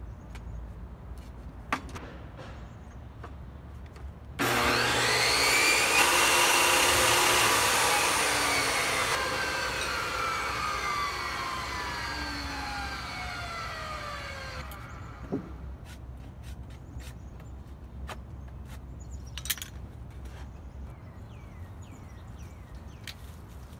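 Portable jobsite table saw switched on with a rising whine and run briefly through a cedar shake, then switched off, its pitch falling as the blade spins down over several seconds. A few light knocks follow.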